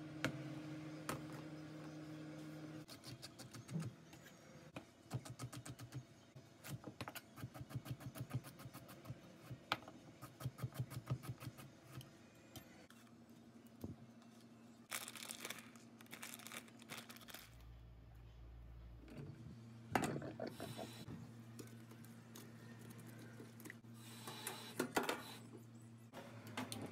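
Kitchen knife chopping vegetables on a cutting board: a steady run of quick knocks, several a second. Then vegetables and utensils are handled around a metal strainer and steel sink, with a couple of short bursts of running tap water.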